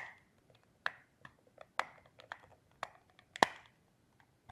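Sharp plastic clicks and small scrapes as a tool is pushed into the notch of a LiftMaster garage door remote's plastic case and twisted to pry the case open. The clicks come about once a second, the loudest about three and a half seconds in.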